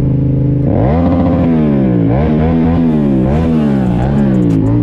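Yamaha MT-07's parallel-twin engine under the rider: it holds a steady note, then from about a second in the revs climb and drop several times as the throttle is opened and closed.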